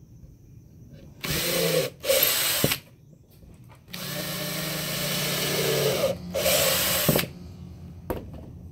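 Ryobi cordless drill boring pilot holes into a wooden planter box: two short runs of the motor, then a longer run of about three seconds with one brief let-up.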